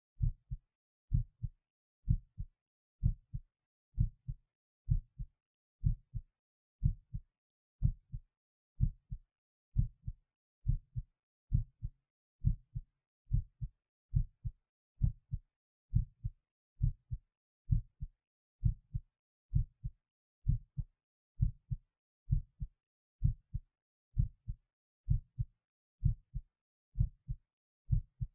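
A human heartbeat, steady and even at about one beat a second, each beat a closely spaced double thump (lub-dub).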